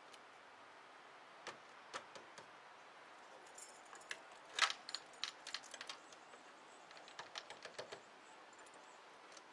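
Keys jangling and clicking at a car's door lock as someone fumbles to unlock the driver's door: scattered light clicks and jingles, busiest around the middle.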